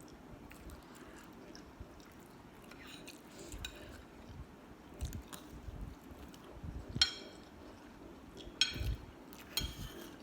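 A person chewing and eating a mouthful of fried rice. Cutlery clinks sharply against a plate three times in the second half, the loudest sounds.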